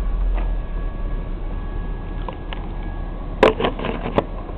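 BNSF freight train rolling through a road crossing, heard from inside a waiting vehicle: a steady low rumble with a faint steady whine. About three and a half seconds in comes a quick run of sharp clacks.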